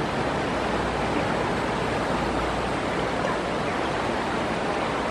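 Swollen, fast-flowing river rushing steadily.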